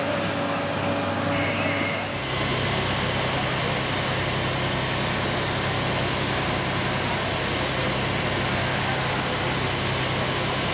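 Fire-truck engines running steadily, with a hiss of noise over them. About two seconds in the sound changes to a deeper, even engine hum under more hiss, next to a turntable ladder truck spraying water from its ladder monitor.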